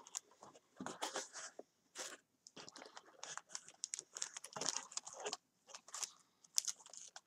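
Clear plastic sleeve and cardboard packaging crinkling and rustling in short, irregular crackles as items are handled and lifted out of a box.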